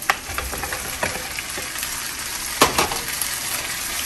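Cut vegetables sizzling in butter in a frying pan as they are tipped in and stirred, with a few sharp clacks of the spatula against the bowl and pan. The loudest clacks come about two and a half seconds in.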